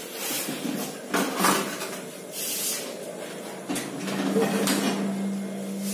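Metal pots and kitchen utensils clattering and scraping as they are moved by hand, in several separate bursts. A steady low hum comes in about four seconds in.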